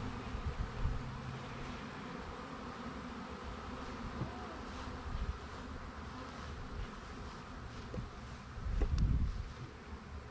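Swarm of honey bees buzzing around a hive box in a steady, dense hum, right after the swarm has been shaken into the box. A brief low rumble comes about nine seconds in.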